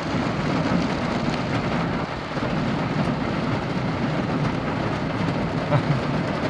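Heavy rain pouring down: a steady, dense hiss with a low rumble underneath.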